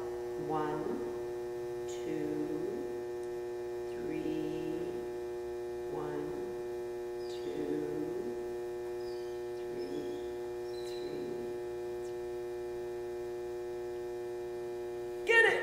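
Steady electrical hum with a ladder of overtones, and faint short sounds about every two seconds in the first part.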